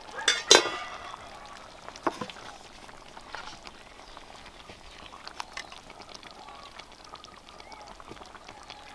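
Wooden spoon scooping meat in chile sauce out of a clay pot onto a clay plate: small wet scrapes and soft ticks, with a sharper knock about two seconds in. A short loud call or voice sounds right at the start.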